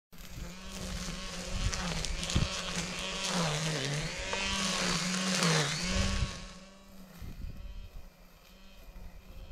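Engine brush cutter running steadily, its pitch dropping briefly twice as the blade bites into the undergrowth, then dying away about six seconds in.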